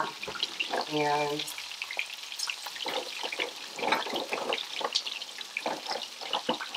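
Coconut-coated shrimp frying in coconut oil in a frying pan: a steady sizzle with irregular crackles and pops of spitting oil.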